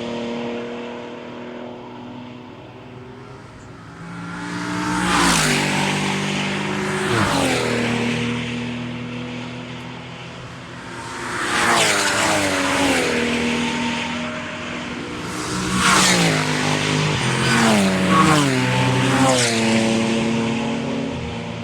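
Endurance race cars passing one after another at speed, about five in all. Each engine's note rises in loudness and then drops in pitch as it goes by, with some passes overlapping near the end.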